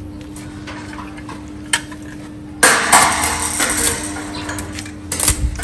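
Metal clanks and clinks from metalwork being handled at a welding bench, over a steady electrical hum. About two and a half seconds in comes a louder burst of clattering noise that fades over a second or so, with a few more sharp clanks near the end.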